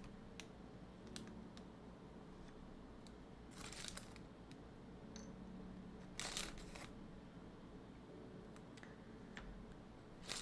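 Lego plastic pieces being handled and pressed together: scattered light clicks and two brief rustles, about three and a half and six seconds in. Faint lo-fi music plays underneath.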